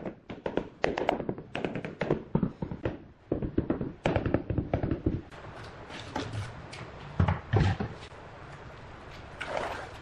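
Rubber mallet tapping a large ceramic tile slab to bed it into the adhesive, in quick irregular runs of taps. About five seconds in, this gives way to a steel trowel scraping and spreading tile adhesive on a concrete countertop, with two heavy thumps a little after that.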